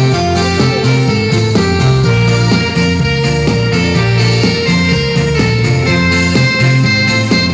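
Music from two Roland electronic keyboards played live and amplified through loudspeakers, several notes at once over a steady beat.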